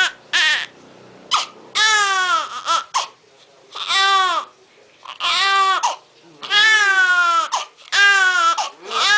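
Newborn baby crying in repeated high-pitched wails, each lasting about a second, with short breaths between them, about six in a row.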